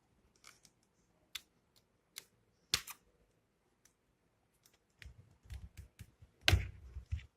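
Sharp plastic clicks and taps as the Philips trimmer's casing is handled and worked open, a few spaced clicks at first, then a quicker run of clicks with dull knocks in the last couple of seconds.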